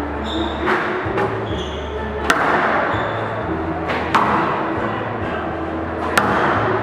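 Squash ball being struck by rackets and hitting the court walls during a rally: five sharp cracks at uneven gaps of about half a second to two seconds, each ringing briefly in the hall.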